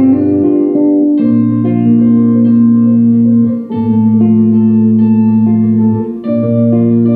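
Instrumental music without singing: held chords over a low bass note that changes about every two and a half seconds.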